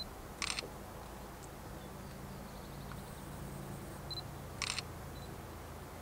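Two camera shots about four seconds apart, each a short high beep followed by a shutter click, over a low steady rumble.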